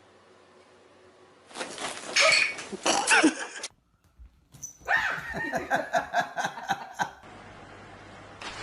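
A dog vocalizing in two short stretches with a brief silent gap between them.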